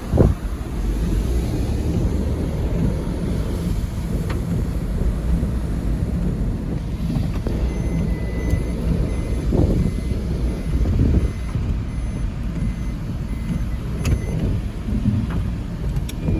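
Steady low rumble of a car on the move, with a sharp knock just after the start and a few faint short beeps.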